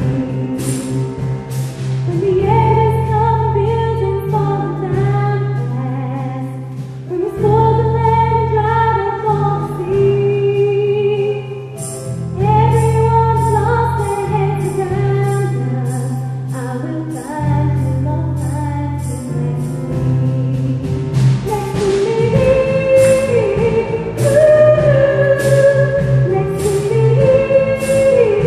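Choir singing a pop song in parts over low sustained accompaniment, with a steady percussive beat of sharp strokes.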